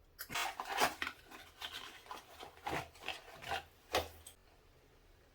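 Rustling and scraping of product packaging being handled and opened by hand. The scrapes are irregular, and a sharp click about four seconds in ends them.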